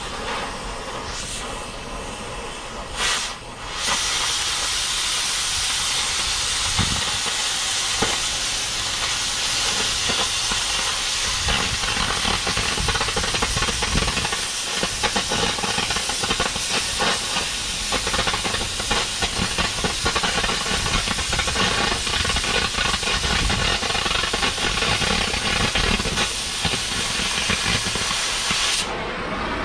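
Oxy-fuel cutting torch (gas axe) hissing steadily as it cuts through the steel plate of an excavator boom. The loud hiss of the cutting jet starts about four seconds in and stops suddenly just before the end.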